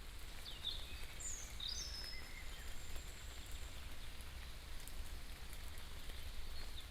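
Outdoor ambience with a few short bird chirps in the first two seconds and one more near the end, over a steady low rumble and an even hiss.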